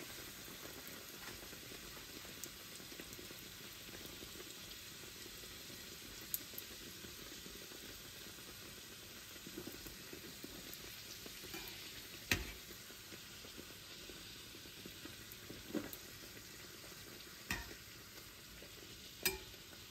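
A puffed bhatura sizzling steadily as it deep-fries on its second side in hot oil in a stainless steel pan. A few sharp clicks of a slotted metal spoon against the pan, the loudest about twelve seconds in.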